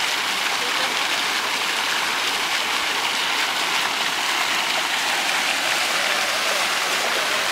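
Splash-pad fountains running: ground jets spraying and a mushroom fountain's curtain of water pouring onto the shallow pool, a steady rushing, pattering hiss.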